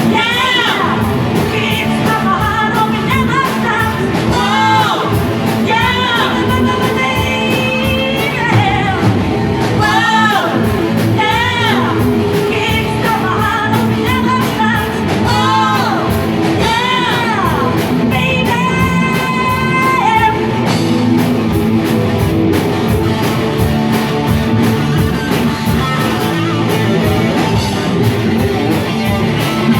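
Rock music: a singer's voice sliding up and down in pitch over a steady drum beat and band, the singing dropping out about twenty seconds in while the instruments play on.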